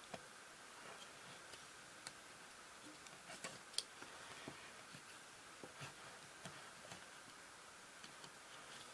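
Near silence: a faint steady hiss with scattered, irregular small clicks and taps, the sharpest about four seconds in, as of a small diecast model being handled.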